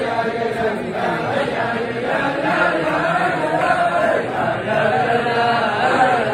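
A large crowd of men chanting together, many voices overlapping at a steady level.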